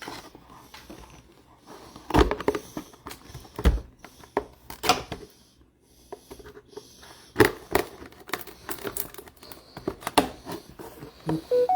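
Trading-card packs and cards being handled: crinkling, tearing wrappers and cards rustling and tapping, in irregular bursts.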